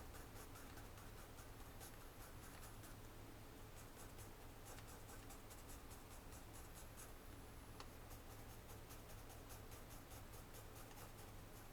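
Faint scratching of pencil strokes on paper, many quick short strokes in a row.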